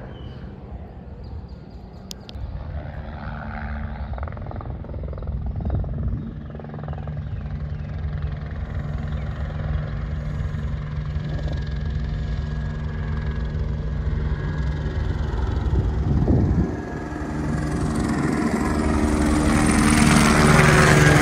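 Low-flying crop-spraying helicopter approaching, its rotor and engine sound growing steadily louder and loudest near the end as it comes close overhead.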